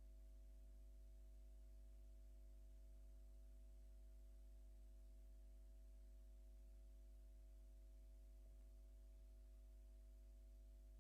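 Near silence: a steady low electrical hum with a few faint, unchanging tones above it.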